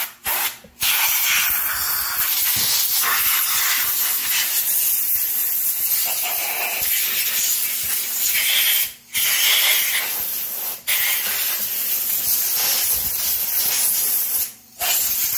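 Aerosol spray cleaner being sprayed in long, steady hissing blasts, with a few brief pauses between blasts.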